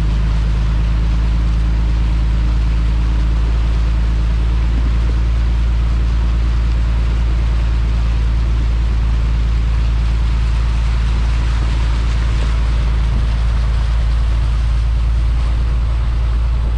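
Steady engine drone and road noise of a vehicle being driven, heard from inside the cab.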